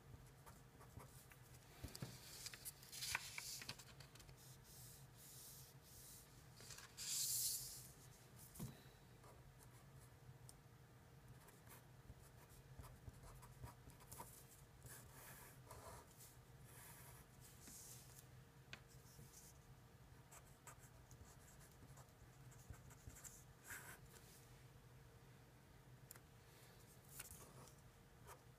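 Faint scratching of a Sharpie felt-tip pen writing on paper in short, irregular strokes, with a louder scrape about seven seconds in.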